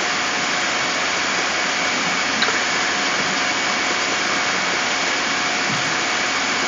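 Steady, even background hiss with a faint constant hum, the recording's noise floor between narrated lines; nothing else happens.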